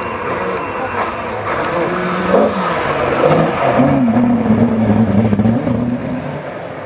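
Small rally car accelerating hard up the stage and passing close by, its engine revving high; the pitch climbs, drops once, then holds high as the car goes past, and fades near the end.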